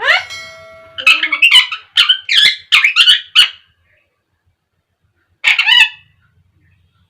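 Pet parakeet squawking: a rising call, then a quick run of about six harsh squawks, a pause of nearly two seconds and one more squawk. This is the bird's scolding chatter, which its owner calls quarrelling.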